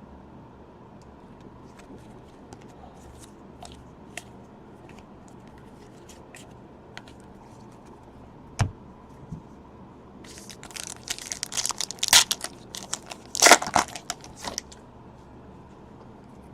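Faint scattered ticks, then a single knock, then a foil trading-card pack torn open with its wrapper crackling and crinkling for about four seconds.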